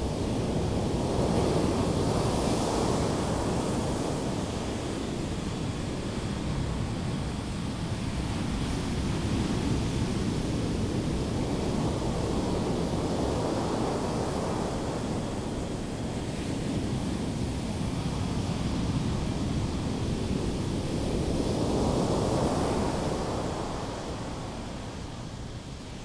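Ocean surf breaking and washing up a sandy beach: a steady wash that swells three times, about ten seconds apart, as waves come in.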